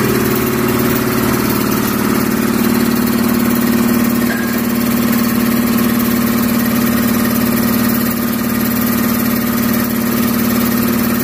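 Machinery running steadily with an even, unbroken drone.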